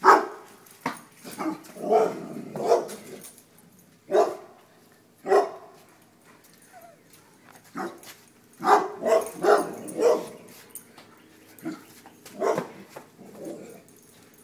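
Dogs barking in alarm at a mounted buck's head: loud single barks and quick runs of two or three, with short pauses between.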